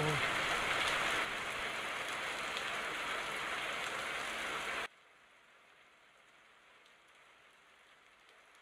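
Heavy rain falling, a steady dense hiss that cuts off abruptly about halfway through, leaving only a faint hiss.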